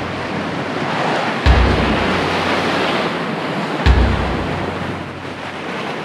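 Choppy sea waves washing with wind buffeting the microphone, and two low thumps, about a second and a half in and about four seconds in.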